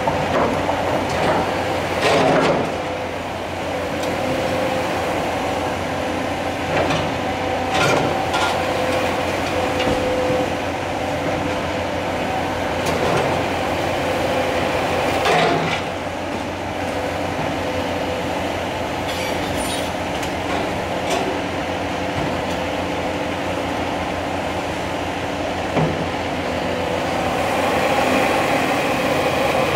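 Cat 336 Next Generation hydraulic excavator demolishing a brick building: its engine and hydraulics run steadily with a constant whine, while its demolition attachment breaks masonry. Several sharp crashes and clatters of falling debris come through, loudest about two seconds in and about fifteen seconds in, and the engine works harder near the end.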